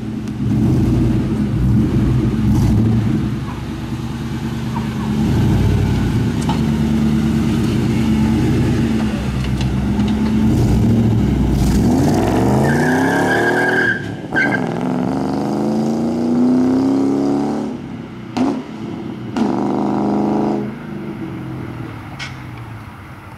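Car with an SLP Loudmouth aftermarket exhaust revving while standing, then pulling away hard and accelerating through two or three upshifts, the pitch rising and dropping at each shift before it fades into the distance. The owner notes a small exhaust leak.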